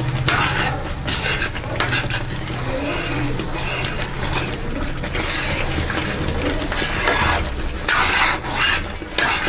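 Thickening besan halwa being stirred in a pan, the spoon scraping across the pan bottom in repeated strokes over a low steady hum.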